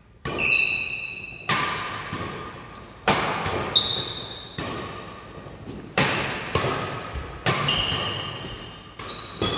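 Badminton rackets striking the shuttlecock in a doubles rally, a sharp hit about every second and a half, each one echoing round the hall. Short high squeaks of sneakers on the wooden court floor come between the hits.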